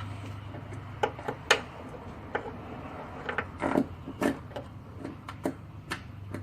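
Scattered light clicks and knocks of parts being handled while an accelerator cable is fed through the firewall under the dashboard, over a steady low hum.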